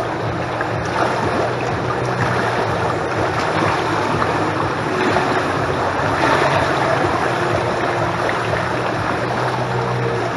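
Pool water sloshing and lapping close to a camera set at the waterline, with a swimmer's strokes splashing, a little louder about six seconds in. A faint steady low hum runs underneath.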